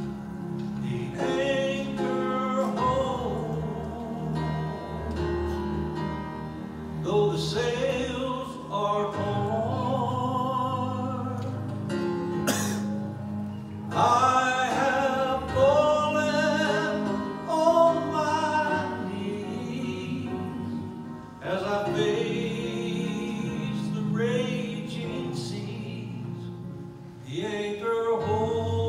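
A man singing a gospel song solo into a handheld microphone, in phrases with short breaths between them, over steady instrumental accompaniment.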